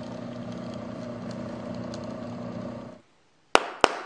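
Homemade wooden lathe running steadily, its belt-driven electric motor humming as it spins a keyless drill chuck on its shaft. The sound cuts off abruptly about three seconds in, and two sharp knocks follow near the end.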